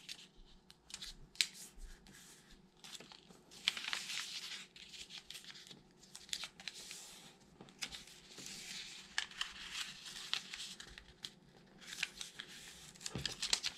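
A 15 cm square of origami paper being folded by hand, its four corners brought to the centre and the creases pressed flat with the fingers: faint, irregular paper rustles and light crackles.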